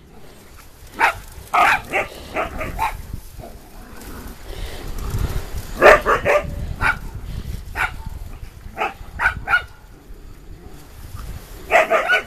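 Dogs barking and yipping in play, in several quick clusters of short barks with pauses between.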